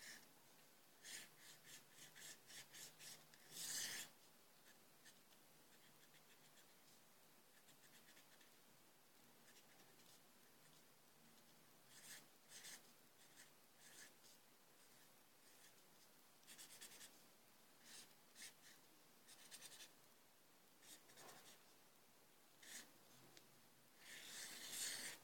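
Faint scratching of a black pen drawing on paper, in short strokes that come in clusters with quieter pauses between. There are longer, louder strokes about four seconds in and near the end.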